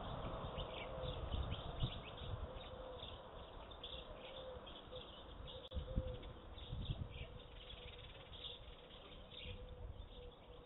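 Small songbirds chirping in quick, overlapping series, over a low rumble and a faint steady hum.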